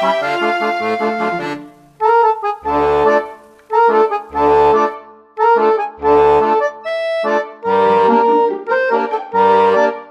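Background accordion music: a sustained tune that pauses briefly about two seconds in, then resumes with a bouncing rhythm of bass notes alternating with chords.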